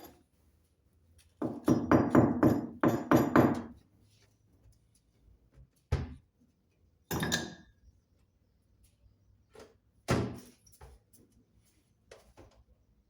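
A quick run of about eight knocks over a couple of seconds, then a few single thuds and a short scrape spaced a second or more apart.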